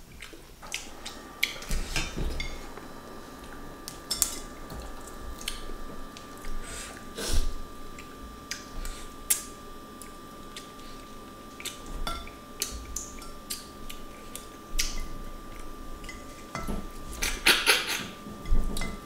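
Table eating sounds: scattered clicks and clinks of hands and a spoon against ceramic plates and bowls, with a louder flurry near the end. A faint steady high tone hums underneath from about a second in.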